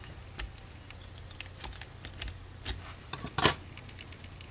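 A triangle pick working the pins of a Master Lock padlock held under a tension wrench. It makes irregular small metal clicks and scrapes, with one louder click about three and a half seconds in.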